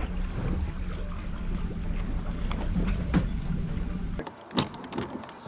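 An engine running steadily with a low, even hum, which cuts off abruptly about four seconds in; a couple of sharp knocks follow.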